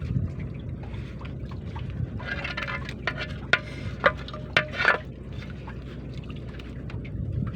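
Water sloshing and splashing over a steady low rumble, with a few sharp knocks between about three and five seconds in.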